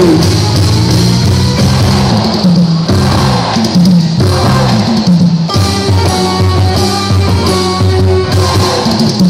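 Band music with drums and a bass line stepping from note to note.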